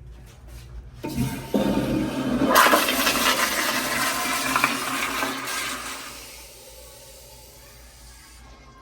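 American Standard restroom flush fixture flushing: a loud rush of water that starts about a second in, stays strong for about four seconds, then tapers to a faint hiss near the end.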